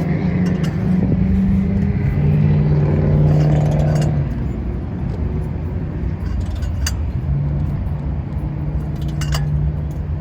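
A steady low machine hum, shifting a little in pitch in the first few seconds, with a few short metallic clinks.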